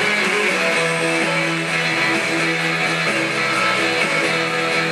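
Background music: guitar strumming chords.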